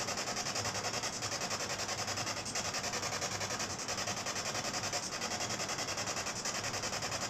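Hissing radio static from a ghost box (spirit box) sweeping through stations, chopped into a fast, even pulse that does not let up.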